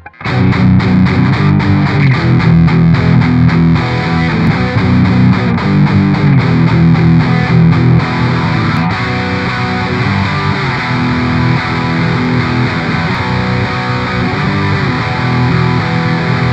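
PRS SE Custom 24-08 electric guitar played with heavy high-gain distortion: fast picked chugging for the first few seconds, then ringing chords and riffs.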